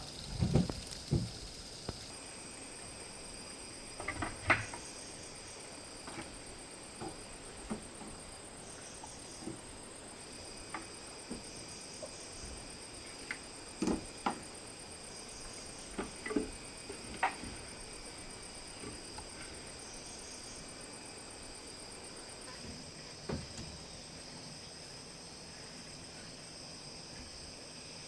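Crickets or other insects chirring steadily in high tones, one of them falling silent about two-thirds of the way through. Scattered light knocks and taps sound over them, a few at a time, with longer gaps in between.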